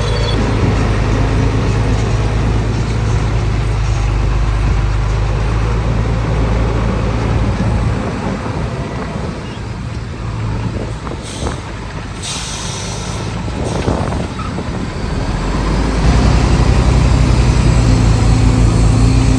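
Heavy diesel engines of earthmoving machinery running, easing off for several seconds in the middle with a couple of short air hisses, then working harder and louder again about sixteen seconds in.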